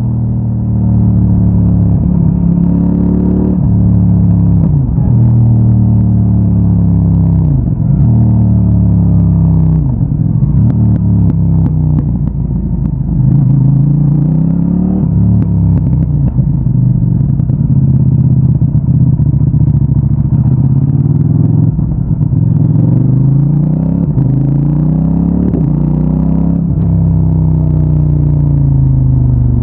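CFMOTO 800NK Advanced's parallel-twin engine through its stock exhaust, accelerating through the gears. The pitch climbs and drops sharply at each upshift several times, then holds steadier and rises slowly before another shift and climb near the end.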